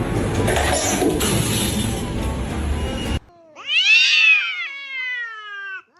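A cat gives one long meow about halfway through, rising and then slowly falling in pitch. Before it, a loud, dense noisy sound cuts off suddenly.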